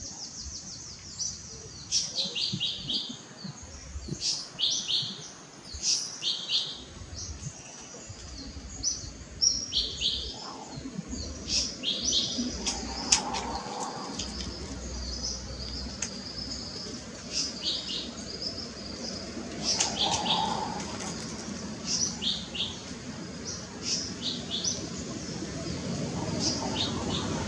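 Small birds chirping: many short, high calls, one every second or so, over a low background rumble.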